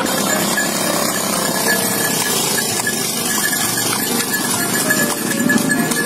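A delman horse's hooves clip-clopping on asphalt as it pulls the cart, with motor traffic passing.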